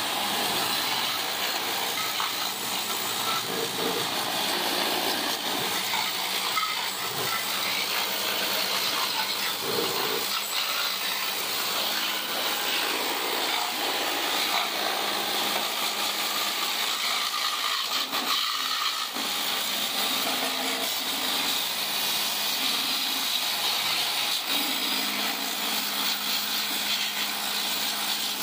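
Water jet spraying onto a scooter's bodywork during washing: a loud, steady hiss.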